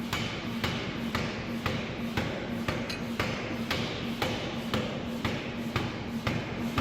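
Forging hammer striking a hot non-ferrous alloy bar in rapid, even blows, about two a second, over a low machine hum that comes and goes.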